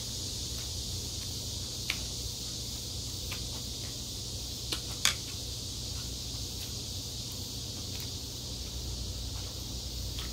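Cooked shrimp shell being peeled by hand: sparse small cracks and clicks, the loudest two close together about halfway through, over a steady hiss.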